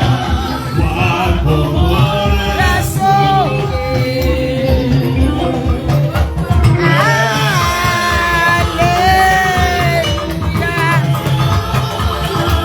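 Church music: voices singing held, gliding lines over a steady low beat.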